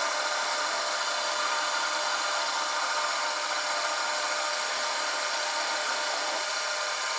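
Metal lathe running while its cutting tool takes a shallow facing cut across the lubricated face of an aluminum workpiece, a steady cutting noise over the spindle's hum.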